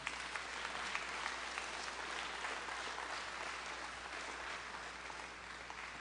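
A small audience applauding steadily, then slowly tapering off in the second half.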